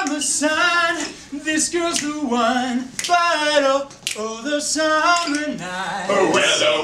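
Several men singing a melody together in held, stepping notes, with a few sharp clicks about a second apart.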